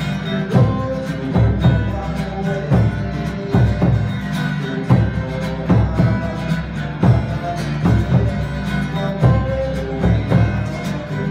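Tahitian drumming ensemble playing live: a fast, dense drum pattern over deep bass drum strokes, with regular accented beats.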